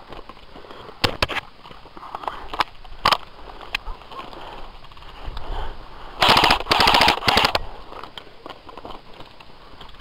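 Airsoft guns firing: a few scattered single shots in the first few seconds, then a rapid full-auto burst about six seconds in that lasts about a second and a half.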